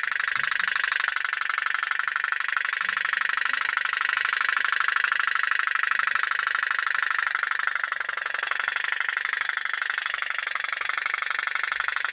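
Pop-pop boat's little steam engine running, popping in a fast, even rhythm that keeps on steadily.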